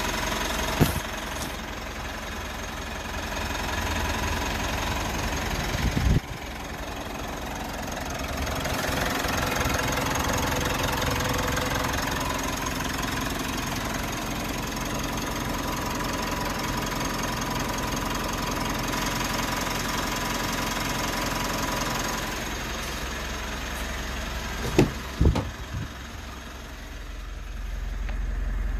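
Mitsubishi Montero Sport's four-cylinder turbo diesel idling steadily and running normally after two months of sitting, with a few sharp thumps about a second in, about six seconds in and near the end.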